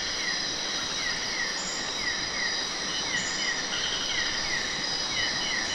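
Night-time chorus of crickets and other insects: a steady high-pitched ringing, with a short falling chirp repeated in quick runs, over a steady hiss.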